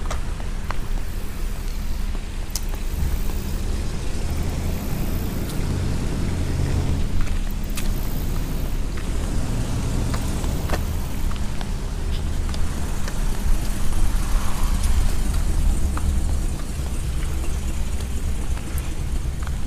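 Motor vehicle running: a steady low rumble of engine and road noise, with a few light clicks over it.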